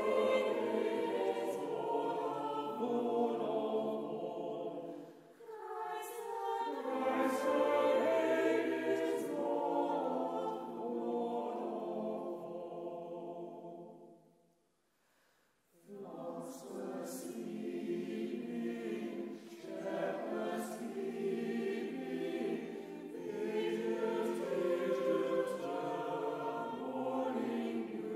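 Choir singing, with a short silent break between phrases about halfway through before the singing resumes.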